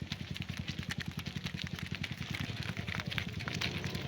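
Small motorcycle engine running steadily with a fast, even putter of about a dozen beats a second, with scattered light clicks over it.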